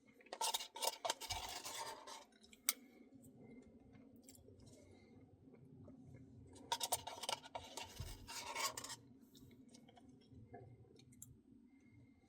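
Two bursts of close-miked crackly scraping and crunching from eating a Blizzard, each about two seconds long, with a single sharp click between them.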